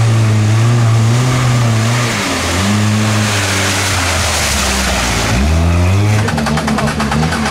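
Lada Niva SUV's engine revving hard as it ploughs through deep mud and water, the revs dropping twice and climbing again, with water and mud splashing around the middle. Near the end the engine note turns into a rapid rhythmic chatter.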